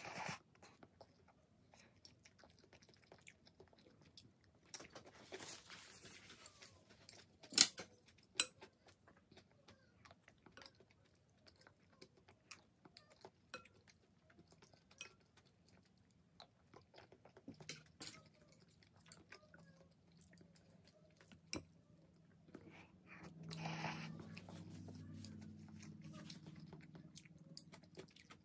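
Close-up eating sounds of instant ramyun: noodles slurped and chewed with small wet mouth clicks, and longer slurps about five seconds in and again near the end. Two sharp clicks, the loudest sounds, come about eight seconds in.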